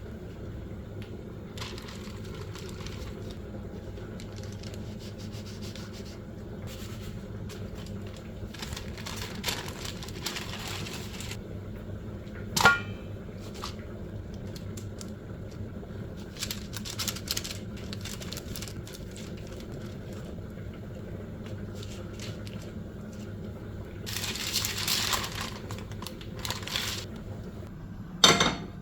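Parchment paper rustling and crinkling with scattered light ticks as rolled almond-flour dough is pressed and trimmed between the sheets, with a steady low hum underneath. Two sharp knocks stand out, one about halfway and one near the end.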